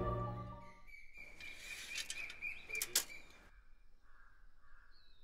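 Background music fading out in the first second, then birds chirping, with a few light clicks and one sharper click about three seconds in.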